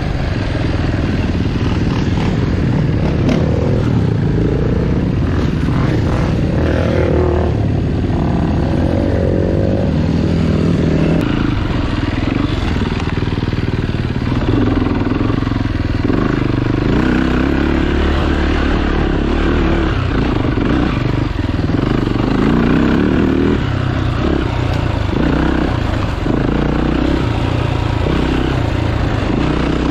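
Dirt bike engine running while riding, its pitch rising and falling with the throttle.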